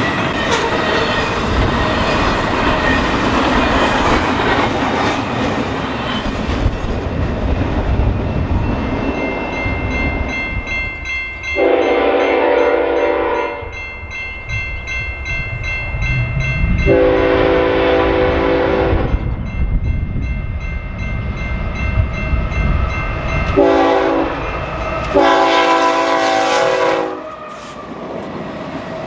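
Double-stack intermodal freight train rolling past with a steady rumble and wheel clatter. Then an approaching BNSF freight train's multi-chime air horn sounds the grade-crossing signal: two long blasts, a short one and a long one. The last blast comes as the locomotives pass close by.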